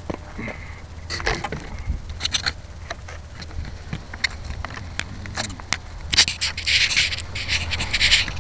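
Handling noise of a small camera being picked up and held. Scrapes and sharp clicks come against the microphone, followed by a run of close rustling in the last couple of seconds.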